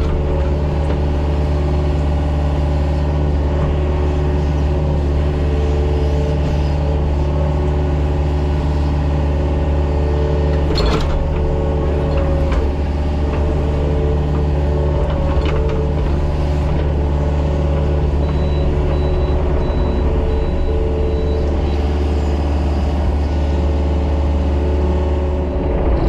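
Mini excavator's diesel engine running steadily under working load while grading mud, with a single sharp knock about eleven seconds in.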